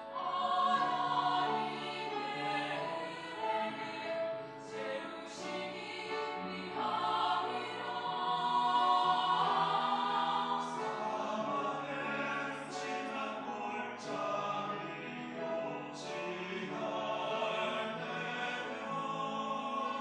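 Mixed church choir singing an anthem in held, full chords, with crisp 's' sounds from the words now and then.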